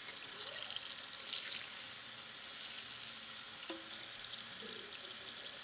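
Kitchen faucet running a steady stream of hot water onto paper in a bowl held in a stainless steel sink, a continuous splashing hiss as the paper soaks.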